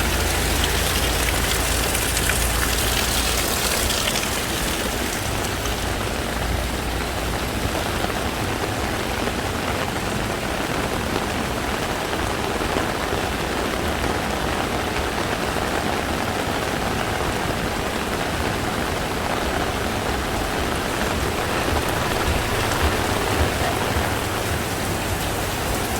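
Heavy rain pouring down steadily, an even hiss of rain on the street, with a low rumble in the first few seconds.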